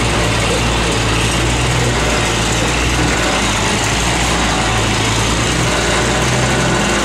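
A diesel engine running steadily at idle.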